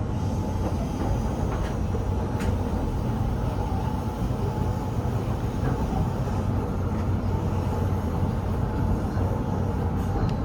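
Keihan 800 series train running, heard from on board: a steady low rumble of wheels on rail with a faint steady whine and a few light clicks.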